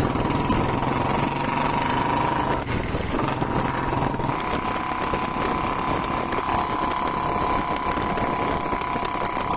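Motorcycle engine running while being ridden, with a steady rush of wind and road noise; the rider says the bike is misfiring and doesn't know why.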